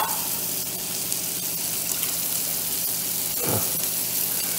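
Steak frying in a pan on the stove: a steady sizzling hiss.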